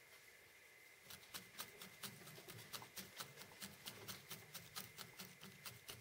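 Felting needle stabbing repeatedly into wool, felting a layer of fibre onto a small wool armature: faint, even pokes, about four or five a second, starting about a second in.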